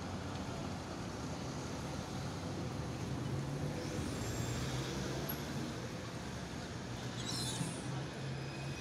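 Melbourne A-class tram running in slowly to a stop, a low steady hum under the rumble of street traffic, with a short hiss about seven and a half seconds in as it halts and its doors open.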